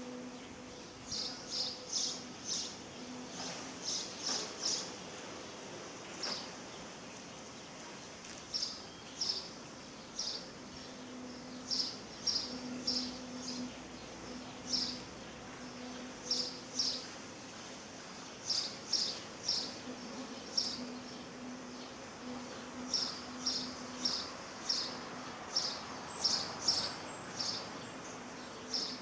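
A faint low, steady hum of unexplained origin that fades in and out, heard as coming from the sky. Over it comes high-pitched chirping in short groups of two to four chirps, repeating every second or two.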